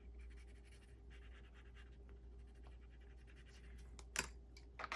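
Colour pencil scratching softly on paper as a box is coloured in. About four seconds in comes one sharp clack as loose pencils are handled.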